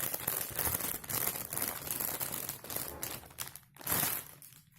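Close-up crinkling and rustling of plastic being handled, with a louder crinkle near the end.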